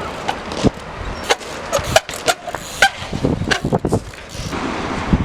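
Trials bike hopping and landing: a string of sharp knocks and clacks from tyres and frame striking hard ground at irregular spacing, with a couple of short squeaks.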